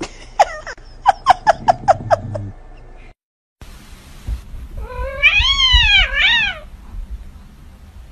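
Cats meowing: a quick run of short, sharp cries, each falling in pitch, in the first couple of seconds. After a brief break comes one long meow that rises and falls, then a shorter one.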